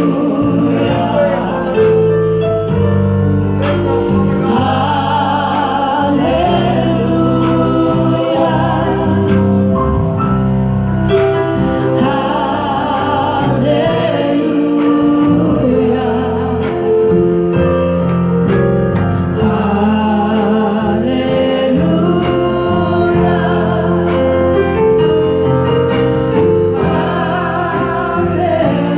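Gospel worship music: voices singing a wavering melody over long held instrumental chords.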